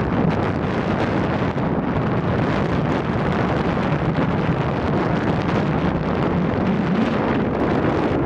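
Steady wind rushing over the microphone of a camera on a moving scooter, with a low engine drone underneath.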